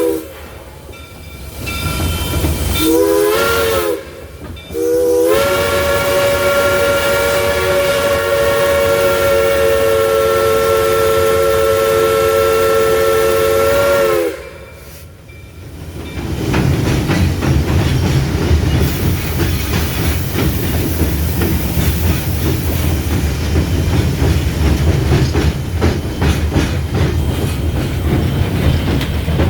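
Steam locomotive's chime whistle: a brief blast about three seconds in, then a long steady blast of several notes held for about ten seconds. After a short lull, the locomotive and train running along with a steady low rumble and clatter.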